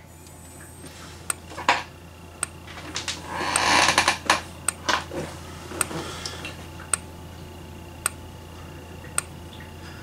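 Strobe of a Gentex SHG horn strobe flashing with a sharp tick about once a second, over a faint steady high tone and a low electrical hum. A louder burst of noise comes about three to four and a half seconds in.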